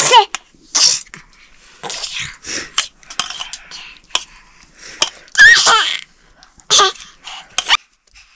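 A baby's short, high-pitched squeals and breathy vocal noises, a string of separate bursts with pitch that bends up and down.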